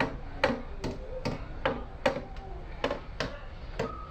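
A run of about ten sharp metal taps, roughly two and a half a second, as a hand tool strikes the copper inlet pipe being fitted onto a brass radiator tank.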